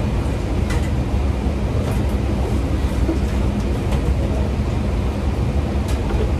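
Steady low rumble and hum of a commercial kitchen's running equipment, with a few faint clicks about a second in, two seconds in and near the end.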